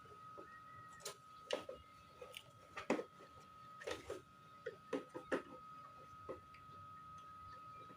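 Irregular light clicks and knocks of metal parts being handled and fitted: a snail horn, its mounting bolt, spacer and nut going onto the scooter, about a dozen taps spread unevenly, over a faint steady high tone.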